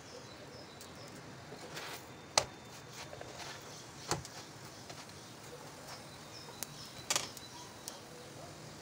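Gözleme frying in a nonstick pan with a faint steady crackle, broken by a few sharp clicks of a slotted plastic spatula against the pan as one half is lifted and set back, the loudest about two and a half seconds in.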